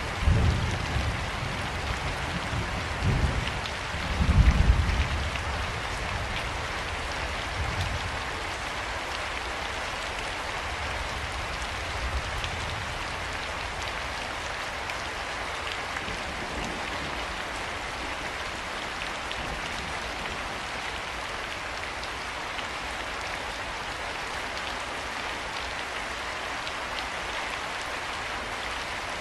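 Steady rain falling, a continuous hiss, with low rolls of thunder during the first five seconds, loudest about four and a half seconds in.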